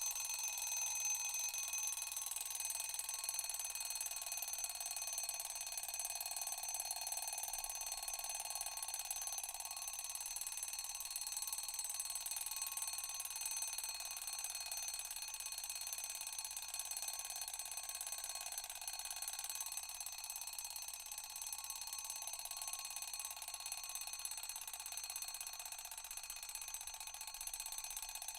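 Wind-up mechanical alarm clock ringing without a break, a dense metallic bell ringing that eases off slightly in loudness toward the end.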